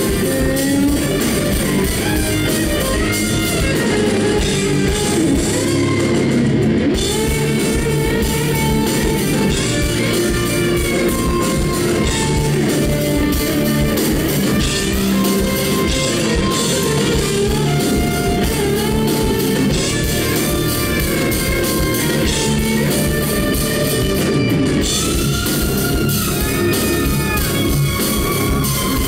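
Live instrumental rock: an electric lead guitar plays a melody full of bends and glides over bass and a drum kit.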